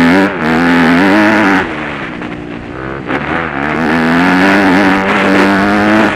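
Dirt bike engine heard from on board, running at high revs, easing off about one and a half seconds in, then accelerating again and holding high revs until near the end.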